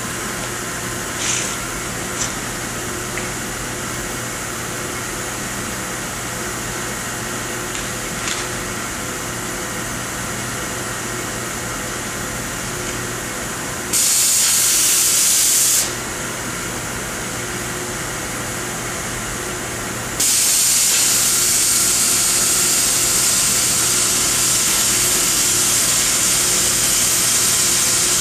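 Victor oxy-acetylene cutting torch with a 00 tip hissing steadily on a neutral flame as it preheats the edge of quarter-inch steel plate, with a few faint pops. About halfway through, the much louder, higher hiss of the cutting-oxygen jet blasts for about two seconds and stops. About two-thirds of the way in, it comes on again and holds as the torch cuts through the plate.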